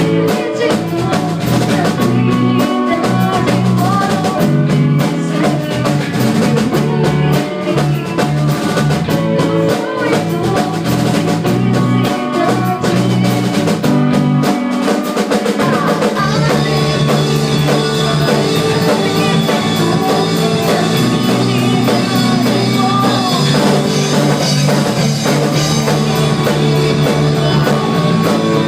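Rock band playing a song at rehearsal: drum kit and guitar together, with the cymbals growing brighter about halfway through.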